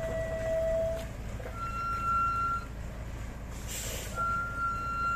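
A bus engine running low and steady as the bus creeps forward over muddy gravel. Two steady, high-pitched beeps of about a second each are heard over it, with a short hiss between them.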